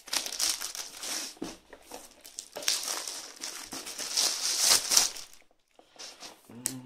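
Black plastic mailing bag crinkling and rustling as it is handled and pulled open, in irregular crackles that are loudest about five seconds in and then stop.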